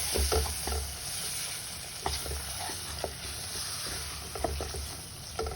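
Onion, tomato, green chilli and spice masala sizzling in hot oil in a kadhai while being stirred, with a steady hiss and scattered short knocks and scrapes of the stirring utensil against the pan.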